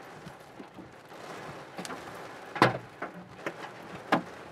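Hailstones and rain pelting a car, heard from inside the cabin: a steady drumming hiss with a few sharp hits of larger stones, the loudest a little past halfway.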